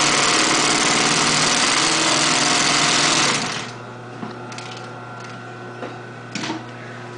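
Mitsubishi industrial double-needle lockstitch sewing machine stitching at high speed, stopping suddenly about halfway through. Its motor keeps humming steadily afterwards, with a few light clicks.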